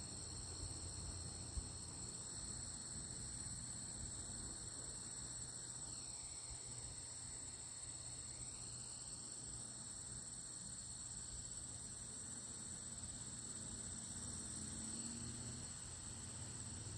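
Steady chorus of singing insects: several continuous high-pitched trills at different pitches, over a faint low rumble.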